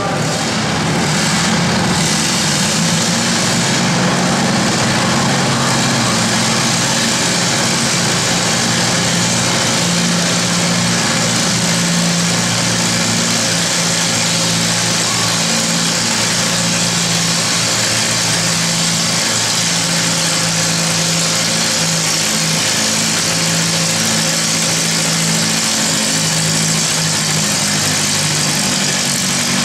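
Allis-Chalmers tractor engine running steadily under load, pulling a weight sled.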